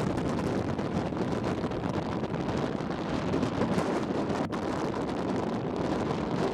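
Wind buffeting the microphone aboard a moving boat, over the boat's steady low rumble and rushing water.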